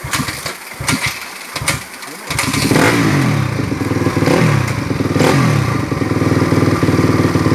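A few knocks and clatter, then about two seconds in a dirt-bike engine starts and is revved up and down a few times before settling into steady running.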